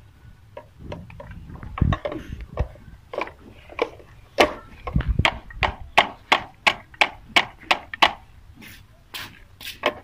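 Knife tip digging the seeds and pulp out of a hollowed tinda (apple gourd) over a plate: a run of sharp clicks and taps as the blade knocks against the gourd and the plate, sparse at first and coming quickly in the second half.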